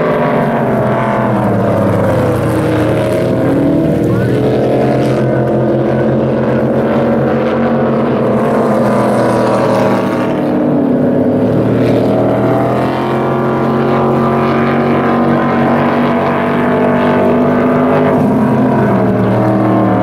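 Unblown flatbottom racing boats' inboard engines running hard, two boats racing close together. The engine note drops and climbs back up twice, a few seconds in and again about halfway.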